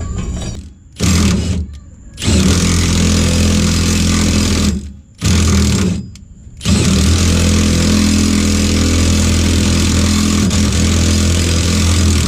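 Power drill boring a new bolt hole in metal, run in three pulls of the trigger: a short burst, one of about three seconds, then a long steady run, with brief pauses between. The hole is being drilled because the new air-bag brackets did not line up with the old holes.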